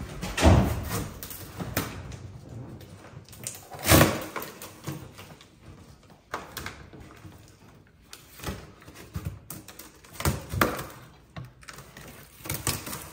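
A cardboard shipping box handled by a small child: uneven knocks and scraping of cardboard as it is pushed and pulled, with a strip of packing tape being peeled from the top. The loudest knocks come about half a second and about four seconds in.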